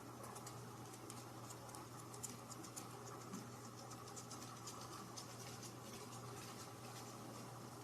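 Faint, irregular light scratching and tapping, many small clicks in quick succession, over a steady low hum.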